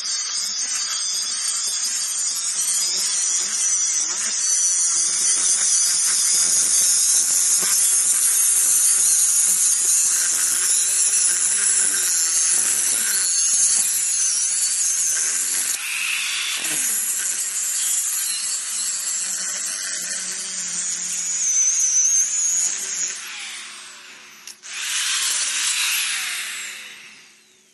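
Angle grinder cutting through a sheet of expanded metal, a loud high-pitched grinding whine. Near the end it eases off, cuts in again briefly, then winds down.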